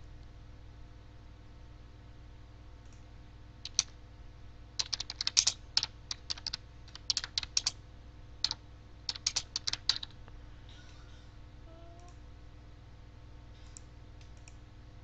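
Computer keyboard typing in short runs of keystrokes, starting about four seconds in and stopping around ten seconds in, over a faint steady hum.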